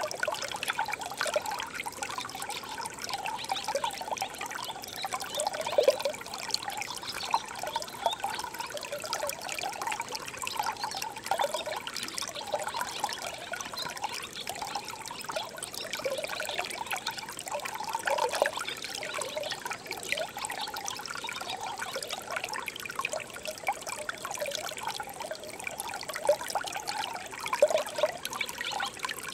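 Shallow brook babbling over stones: a steady trickle of running water with many small gurgles.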